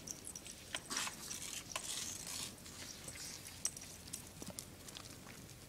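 Faint, scattered crunches and rustles of footsteps in snow, a little stronger about one and two seconds in.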